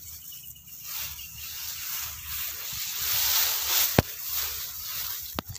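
Rice plants' leaves rustling and brushing against the phone as it is pushed through them, a hiss that swells about three seconds in, with one sharp tap about four seconds in.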